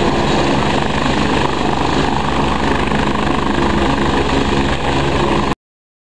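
Helicopter engine and rotor running steadily close by, with a fast low rotor pulse under a steady engine whine. The sound cuts off abruptly about five and a half seconds in.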